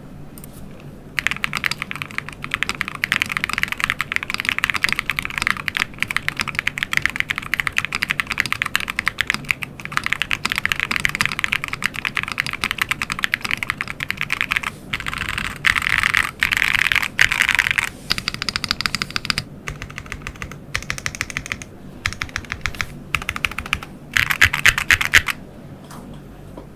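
QK60 60% mechanical keyboard with stock Red Jacket linear switches, tape mod, plate and case foam and lubed stabilizers, typed on fast in a typing sound test. A dense run of keystroke clacks starts about a second in, breaks off in a few short pauses, and has its loudest bursts near the end.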